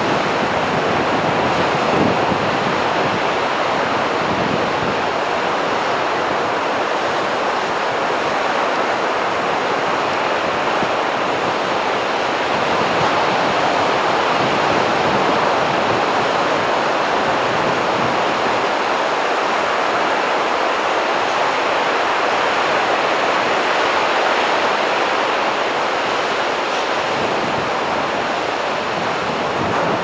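Ocean surf: rows of waves breaking close to shore, a continuous, steady rush of water.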